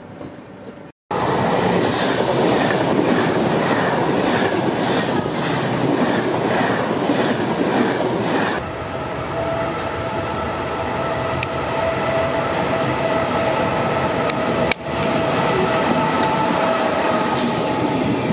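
Passenger train passing close by at a station: a loud steady rumble that starts abruptly about a second in, with wheels clattering over rail joints about twice a second, then a steady high whine over the rumble for the second half.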